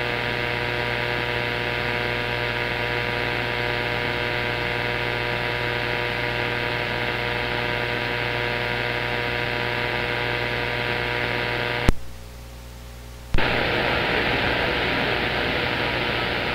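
CB radio receiving on the DX skip band: steady static hiss with a hum and several steady whistle tones from an open carrier. About twelve seconds in, a click drops it to a faint hiss for a second and a half, then another click brings the static back.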